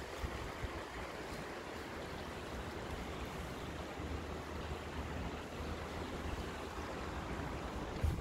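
Steady rushing of floodwater flowing through a street, with a low rumble underneath.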